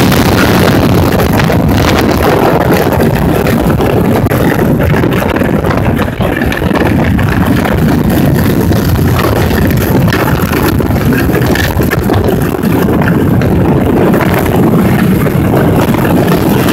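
The Beast wooden roller coaster's train running at speed over its wooden track, making a loud, steady rumble, with wind buffeting the microphone.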